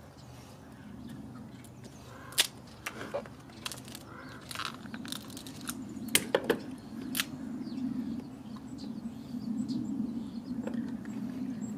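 Kitchen shears snipping and cracking through the shell of cooked crab legs: a scattering of sharp crunches and clicks, three in quick succession about six seconds in. A low steady hum underneath grows louder in the second half.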